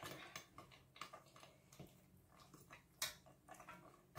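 Near silence broken by a few faint kitchen clicks and taps, with one sharper click about three seconds in.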